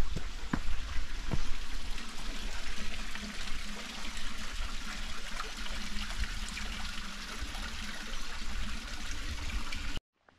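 Creek water trickling and splashing over rocks, a steady rushing hiss, with a few footstep clicks in the first second or two; the sound cuts off suddenly near the end.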